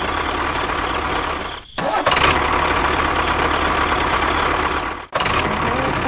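Tractor engine running steadily, cutting out briefly twice, about a second and a half in and again about five seconds in.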